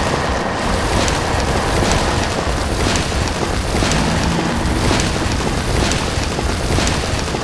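Loud, steady rumbling with a crumbling, gravelly texture, like earth shifting and breaking apart, and light ticks about twice a second.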